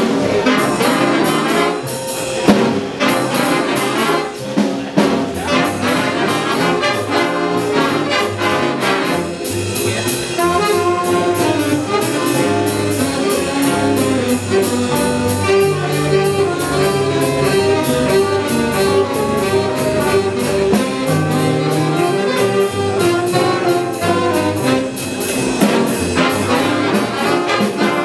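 Student jazz band playing, with trumpets and saxophones carrying the tune over drums keeping a steady beat.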